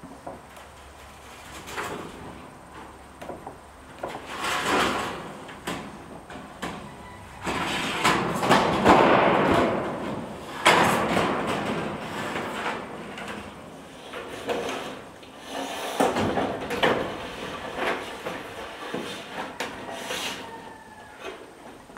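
Long corrugated metal roofing panel being slid up onto a roof: irregular scraping and sliding of the sheet metal with scattered knocks, loudest about eight to eleven seconds in.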